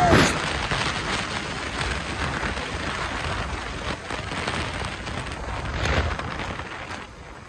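Wind rushing over the microphone of a Yamaha R15 travelling at about 90 km/h, drowning out the engine. A brief louder gust comes about six seconds in, and the rush eases off near the end.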